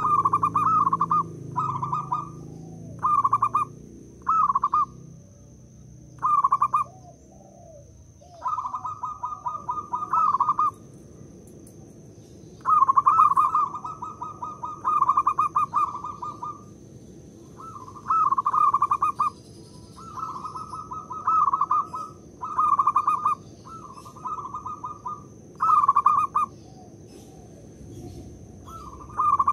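Zebra dove (perkutut) cooing: repeated phrases of rapid, stuttering coo notes, each a second or so long, with short pauses between them and a few longer runs.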